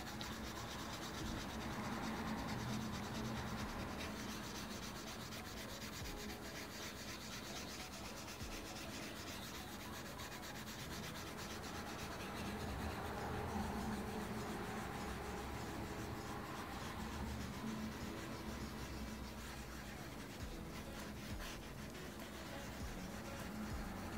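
Cotton swab wet with mineral oil rubbing over oil pastel on Bristol board, blending the colours: a faint, steady scrubbing that swells and eases slowly.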